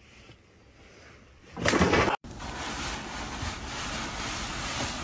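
A short, loud rush of noise about two seconds in. It stops at an abrupt cut and gives way to a steady outdoor hiss.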